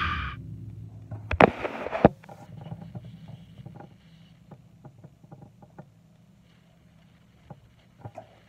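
Two sharp knocks, about a second and two seconds in, then scattered faint clicks and taps from handling, over a low steady hum of room noise.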